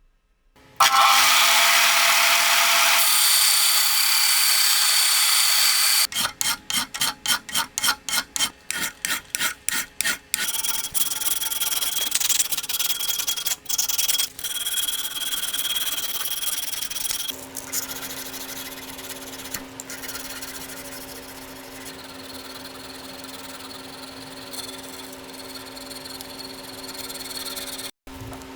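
Hand-tool and power-tool work on an old screwdriver. A steady abrasive hiss runs first, then rapid, even back-and-forth strokes of hand filing or sanding at about three to four a second, then continuous rubbing over a steady motor hum in the second half.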